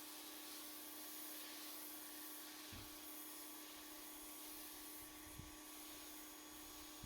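Faint, steady hiss of a pressure washer foam cannon spraying, with a steady hum under it and a couple of soft low thumps.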